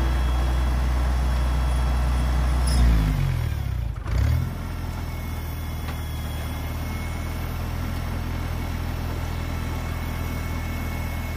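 1960 International Harvester Cub Lo Boy's four-cylinder flathead engine running while mowing; about three seconds in its speed drops, and it then runs on at a lower, steady speed.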